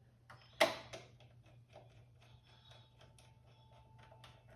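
A sharp click about half a second in, then a run of small clicks and ticks: a screw being driven with a screwdriver into a desktop PC case. A low steady hum runs underneath.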